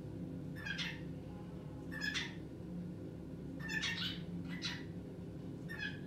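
Cockatiel calling: about six short, separate calls a second or so apart, over a steady low hum.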